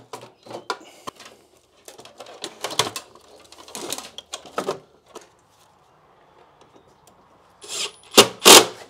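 Electrical cables rustling and clicking against a plastic switchboard enclosure as they are pulled through its cable-entry holes, with a few loud harsh scrapes near the end.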